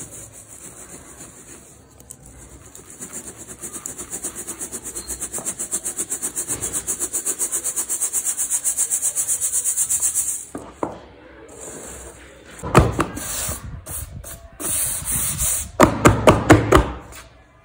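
Dry cement powder being sifted through a stainless mesh strainer shaken by hand: a rhythmic hissing, rubbing patter, several shakes a second, growing louder until about ten seconds in. After that it turns irregular, with a few louder thumps and rustles near the end.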